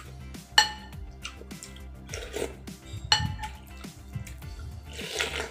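Metal spoon clinking against a ceramic bowl twice, each clink ringing briefly, over background music.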